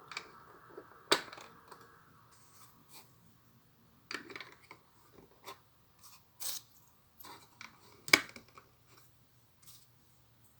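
Plastic Lego bricks being handled and pressed together: irregular small clicks and rustles, with two sharper, louder clicks, one about a second in and one near the end.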